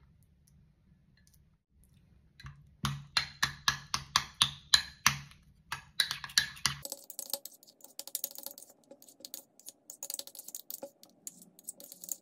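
Metal spoon clinking and scraping against a small ceramic bowl as cream cheese is beaten to soften it. Starts with steady strokes about three a second, then turns into quicker, lighter tapping and scraping about halfway through.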